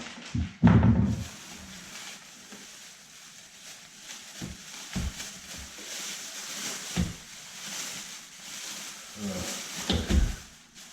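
Parts and packaging being handled: one heavy thump just under a second in, then scattered knocks and a steady rustle, with a cluster of knocks near the end.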